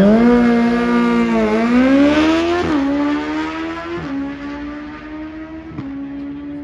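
Suzuki Hayabusa's inline-four engine launching hard off a drag strip start line, revs jumping at the launch and climbing, then three quick upshifts, each a sudden drop in pitch about 2.7, 4 and 6 seconds in. The sound fades as the bike runs away down the track.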